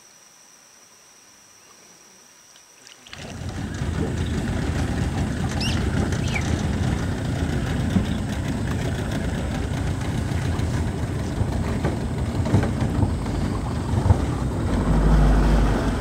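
Faint steady high buzzing of insects, then about three seconds in a loud, low, rumbling noise cuts in abruptly and drowns it out, continuing with uneven swells and a few sharp knocks.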